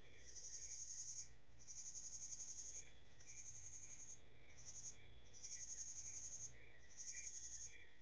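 Crickets chirping at night: a high-pitched pulsed trill in six bursts of up to about a second each, with short gaps, over softer, lower, steadily repeating chirps.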